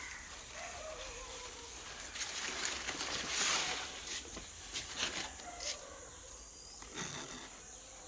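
Outdoor ambience with scattered clicks and rustles of a handheld phone being moved among leafy potted plants, with a louder rustle about three and a half seconds in.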